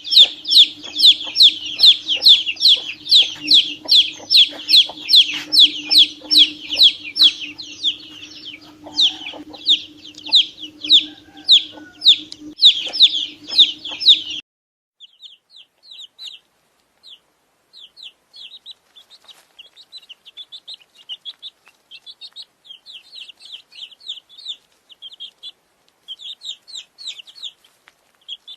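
Domestic chicks peeping: loud, rapid, falling peeps about three a second over a steady low hum. About halfway through this cuts off abruptly to quieter, sparser peeping.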